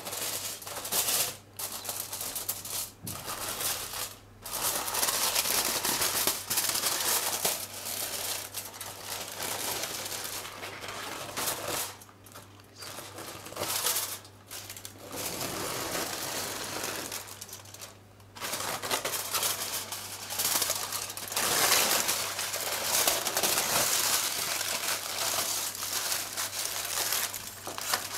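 Aluminium foil crinkling and tearing as it is slit with a knife and peeled back off a roasting tray, along with the baking paper beneath it. The crackling comes in bursts with short pauses.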